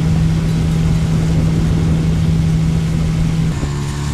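Tiller-steered outboard motor on a small aluminium jon boat running steadily under way, a constant drone with a single strong note. The note shifts a little lower about three and a half seconds in.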